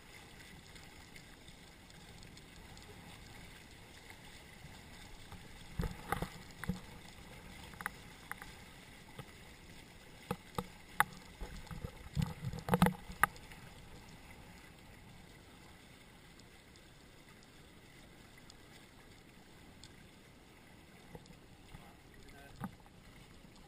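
Water washing along the hulls of a Hobie Cat catamaran under sail, with a run of sharp knocks and slaps in the middle.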